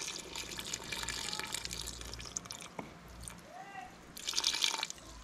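Ginger water being poured onto meat in a pot: splashing and trickling liquid, with a louder burst of splashing about four seconds in.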